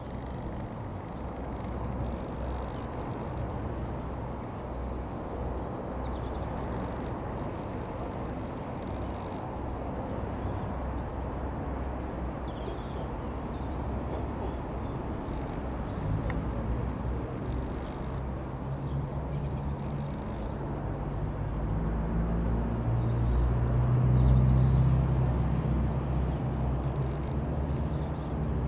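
Drone of a single-engine light aircraft's piston engine and propeller growing louder about two-thirds of the way in and peaking near the end, over a steady outdoor rumble. Small birds chirp now and then.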